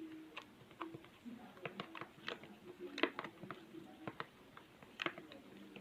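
Clumped slime of white glue and activator being stirred in a container: irregular sticky clicks and squelches, several a second.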